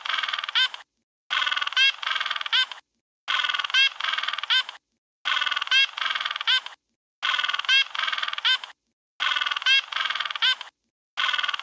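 Penguin braying: the same harsh honking call, about a second and a half long, repeated about every two seconds with short silences between.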